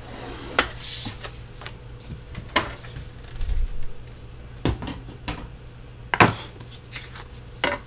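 Scattered sharp clicks and knocks of a plastic scoring board and stylus being handled and set aside, with a short paper rustle about a second in and a dull thump midway.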